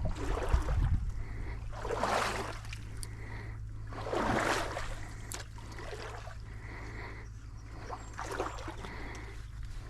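A small trout stream trickling, with two louder rustling swishes about two and four seconds in. A faint short high note recurs about every two seconds.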